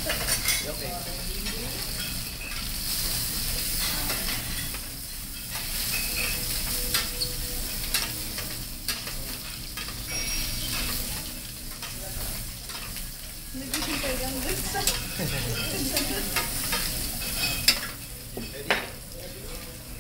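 Lobster meat sizzling steadily in a hot stainless steel frying pan, with the clink and scrape of metal tongs turning the pieces and the pan being shaken. The sharpest clacks come near the end.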